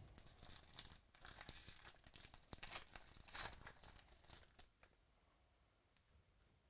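Foil wrapper of a trading-card pack being torn open and crinkled by hand: a crackling rustle that stops about five seconds in.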